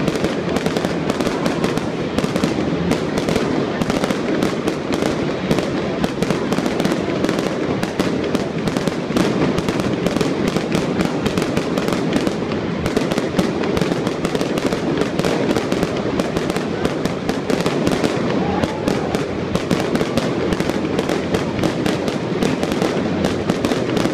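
Fireworks display going off in a dense, unbroken barrage of rapid bangs and crackles.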